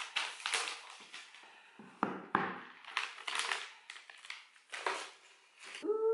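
Clear plastic shrink wrap being peeled and crumpled off a cardboard phone box, crinkling and crackling in a run of short bursts.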